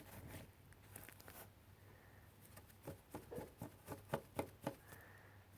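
Faint handling of small squishy rubber toys: a quick run of soft taps and clicks in the second half.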